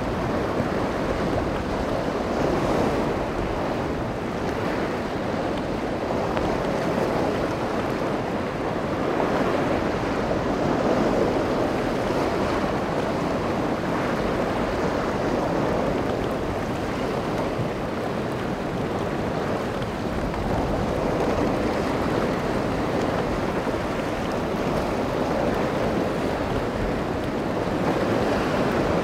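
Steady rush of wind and surf, with wind buffeting the microphone, slowly swelling and easing in loudness.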